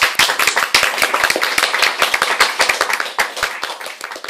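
Small audience applauding, with many distinct separate hand claps, thinning out and fading near the end.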